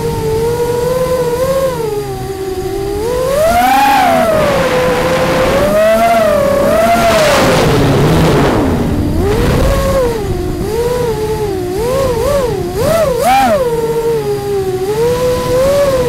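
Electric motors and propellers of an FPV drone, heard from its onboard camera: a steady whine whose pitch rises and falls with the throttle, sweeping up about four seconds in and wavering quickly near the end. A rush of air noise swells briefly about halfway through.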